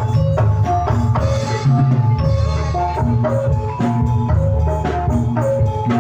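Javanese gamelan music for jathilan: metal-keyed instruments strike a running melody of ringing notes over drums and a heavy bass, played loud.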